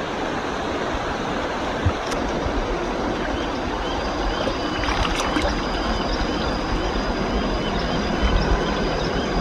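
Shallow river water flowing and rippling steadily over rocks, with a few small knocks or splashes from hands working among the stones. A thin, steady high tone with faint repeating chirps joins about four seconds in.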